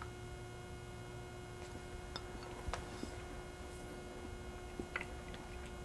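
Faint, scattered mouth clicks of someone chewing a bite of soft quick bread with cream cheese, over a steady hum.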